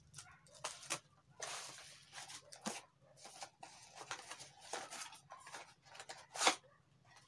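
Plastic packaging rustling and crinkling as it is handled, in short irregular spells, with one sharper crackle about six and a half seconds in.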